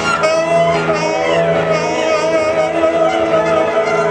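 Live experimental music from a small ensemble of prepared guitar, saxophones and voice: a loud, dense drone of held tones with wavering, gliding higher pitches over it.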